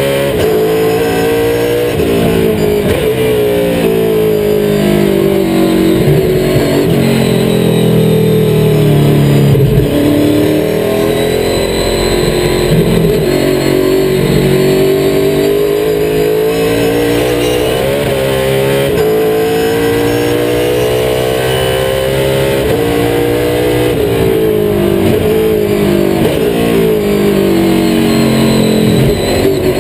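NASCAR stock car's V8 engine running hard, heard from inside the cockpit down by the pedals: the revs climb and fall again and again as the throttle is worked, dropping under braking near the end.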